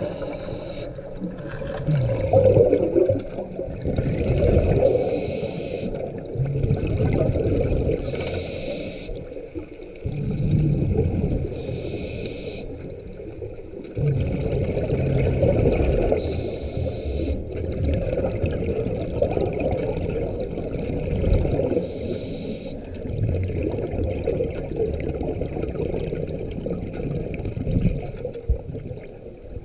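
Scuba diver breathing through a regulator underwater: a short hiss at each inhalation, roughly every four seconds, alternating with a long bubbling rumble of exhaled air.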